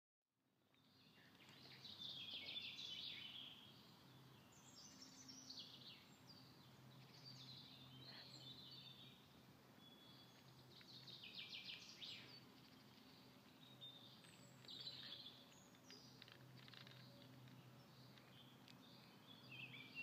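Faint songbirds singing in woodland: repeated short phrases and rapid trills, fading in over the first two seconds. Beneath them runs a faint steady low hum.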